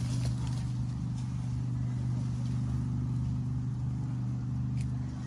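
A steady, low motor hum, like an engine running at idle, with a couple of faint clicks.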